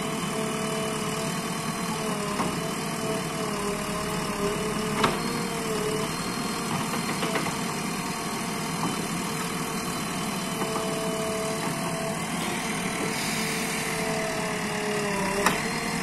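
JCB 3DX backhoe loader's diesel engine running steadily while the backhoe digs, its pitch wavering slightly up and down. Two sharp knocks stand out, one about five seconds in and one near the end.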